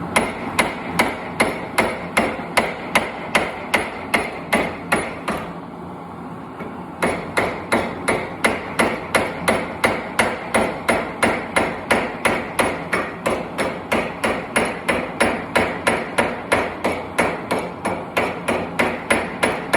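Hand hammer striking hot steel on an anvil while forging a center punch: a steady run of ringing blows, about three a second, that stops for a second or so near the middle and then picks up again at the same pace.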